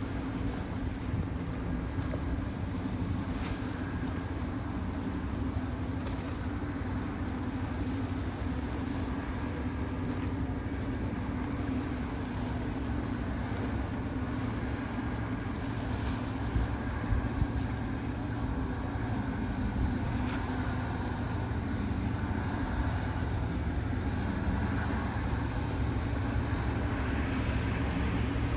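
A large motor yacht's engines running with a steady low hum, under a constant wash of wind and water noise. There are a few brief knocks about halfway through.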